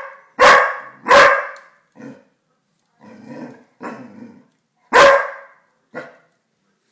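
English springer spaniel barking in single loud barks: two within the first second and a half and another about five seconds in, with short, softer barks and a quieter, lower stretch in between.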